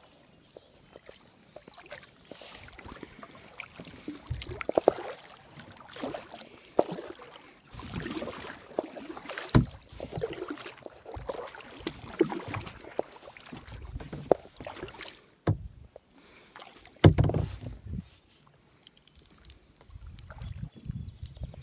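Kayak paddling: paddle blades dipping and splashing in the river at an uneven pace, with several sharp knocks and bumps, among them one loud knock a little past the middle.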